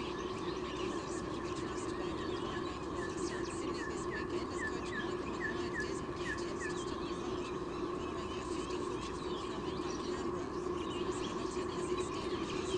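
A steady hum under faint bird twittering; about two seconds in, a bird gives a run of about ten short, falling notes, roughly two a second, lasting some five seconds.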